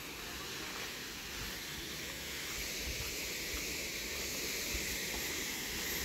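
Steady high hiss of outdoor ambience, with uneven low rumble from wind on the microphone.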